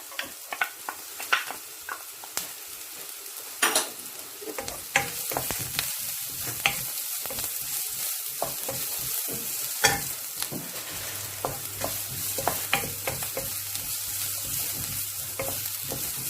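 Garlic and onions sizzling in hot olive oil in a frying pan, with a utensil clicking and scraping against the pan as they are stirred. The sizzle grows louder about four seconds in.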